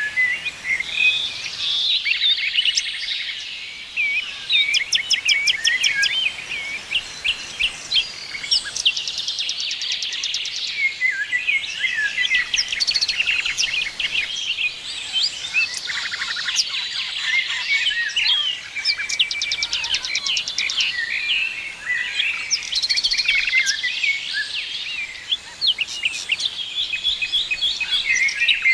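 Several songbirds singing and chirping at once, a dense overlapping chorus of quick chirps, whistles and rapid trills, with two high buzzy trills standing out, about nine seconds in and about twenty seconds in.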